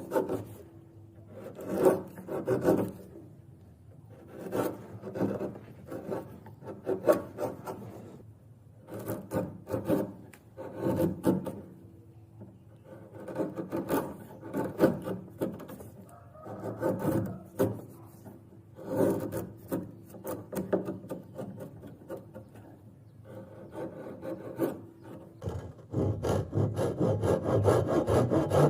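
Wood being worked by hand with quick rubbing, rasping strokes in short bouts every couple of seconds. Near the end a steadier, louder run of strokes begins.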